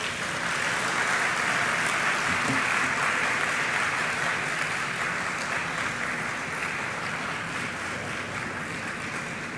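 Audience applauding: the clapping swells within the first second, holds, then slowly dies away toward the end.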